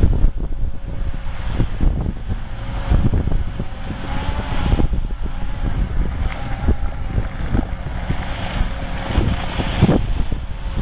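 Wheeled excavator's diesel engine running under load, driving a rotary ditch-cleaning attachment that flings mud and water out of a ditch, with wind buffeting the microphone.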